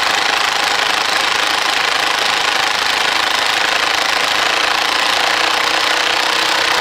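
Impact gun hammering continuously as it runs a bolt into a powder-coated Brembo brake caliper. The bolt is a tight fit, with the powder coating on it binding as it goes in.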